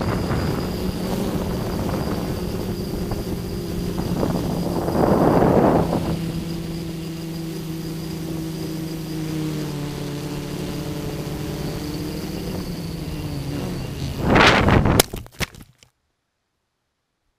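Tricopter's electric motors and propellers droning steadily, picked up by its onboard camera with wind buffeting the microphone and a strong gust about five seconds in. About fourteen seconds in comes a loud rush of air, then a few sharp knocks as the tricopter crashes to the ground, and the sound cuts off. The owner blames the fall on a fault in the flight controller.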